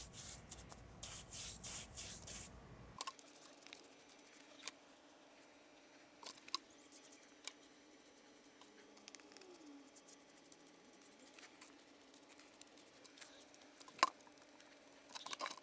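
A brush scrubbing liquid concrete bonding agent onto a rough concrete step in short strokes, stopping abruptly about three seconds in. Faint scattered taps and clicks follow, with one sharper click about fourteen seconds in.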